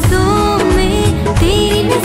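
Bollywood-style song: a woman's voice singing a wavering melody over a steady drum beat and backing music.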